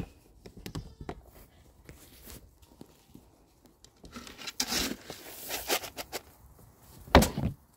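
Red plastic scoop digging into a bin of grain feed, the grain rustling and pattering as a scoopful is lifted, with scattered small clicks. A louder knock comes near the end.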